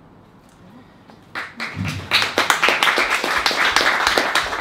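A small audience clapping, starting about a second and a half in after a short quiet, and filling out into steady applause as the poem ends.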